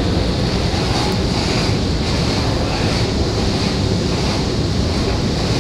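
Steady, loud rumbling noise during a ride on a long subway-station escalator, with the escalator running and air moving over the microphone.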